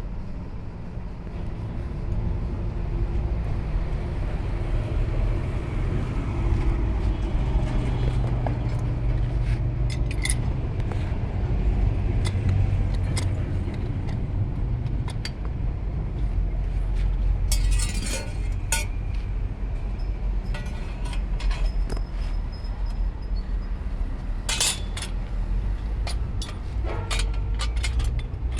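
A steady low rumble with sharp metallic clinks of metal parts and tools being handled, a few at a time, about ten seconds in, twice around eighteen seconds, and again near the end.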